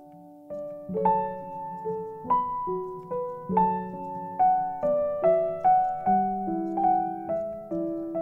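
Slow, gentle background piano music: single notes and soft chords struck about once or twice a second and left to ring out.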